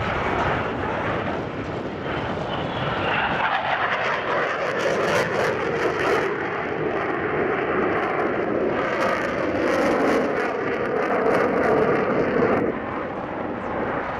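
Jet noise from an F/A-18 Super Hornet's twin General Electric F414 turbofans as the fighter banks overhead: a loud, steady rushing sound whose pitch slides down over the first few seconds and then holds. Near the end it turns quieter and duller.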